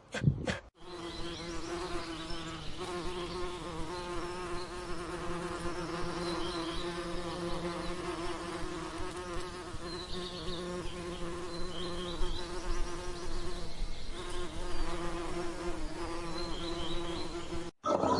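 Flying insects buzzing: a steady, pitched drone that starts just under a second in and cuts off abruptly near the end.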